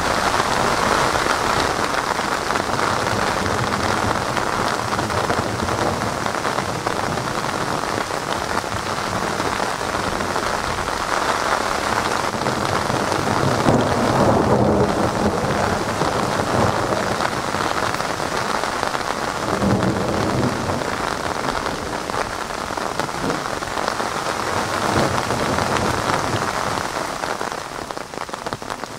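Heavy rain falling steadily during a thunderstorm, with thunder rumbling underneath and swelling louder about halfway through and again a few seconds later.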